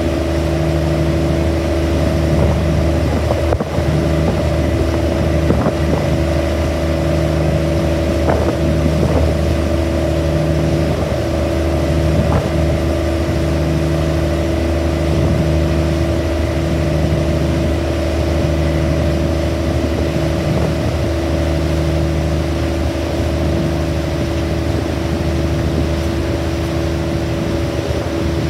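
A ferry's engine running steadily: a low drone with several steady hums, and a lower tone that beats on and off about every two seconds.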